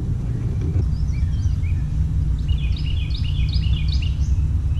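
Songbirds chirping in quick, repeated short calls, thickest in the second half, over a steady low rumble of wind on the microphone.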